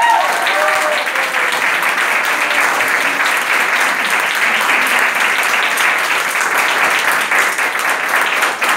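Audience and cast applauding: dense, steady clapping, with a voice calling out briefly in the first second.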